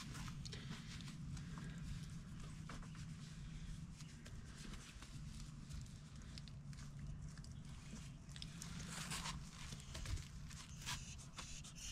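Faint sounds of a dog being petted: light rustling and scattered small clicks as it shifts on its leash and collar, over a low steady rumble.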